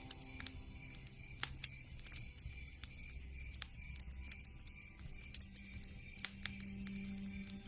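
Wood fire crackling in a fireplace: irregular sharp pops and snaps, a few of them louder.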